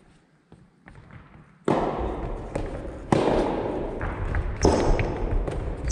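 Soft tennis rackets hitting the soft rubber ball during a rally, several sharp hits echoing around a large gym hall, the loudest about three seconds in, after a nearly quiet first second and a half. A short high squeak comes near the end.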